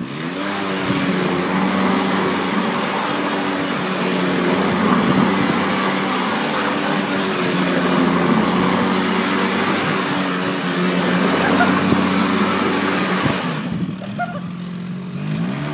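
Small quad bike's engine running at high revs as it is ridden, climbing in pitch in the first second, then holding steady and dropping away about thirteen seconds in.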